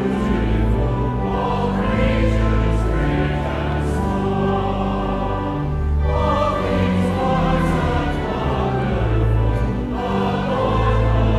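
Choir singing sustained chords that change every second or two, over a steady low bass line.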